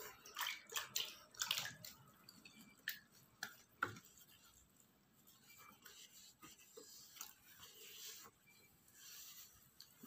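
A damp cloth wiping a dried face mask off the skin: faint, irregular rubbing and dabbing strokes with small water sounds, a quick run of strokes in the first few seconds, then sparser, quieter ones.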